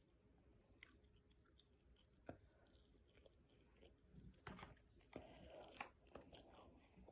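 A person chewing food close to the microphone: faint, scattered mouth clicks at first, becoming busier and louder about halfway through.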